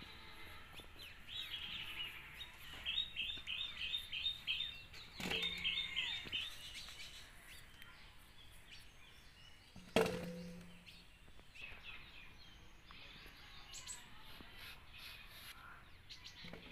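Birds chirping in quick repeated runs, with a low outdoor background. There are two sharp knocks, the louder one about ten seconds in.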